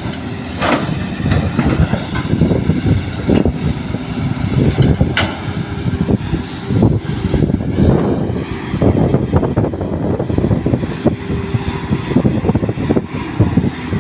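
Diesel engines of a crawler excavator and a light dump truck running, with irregular knocks and clatter.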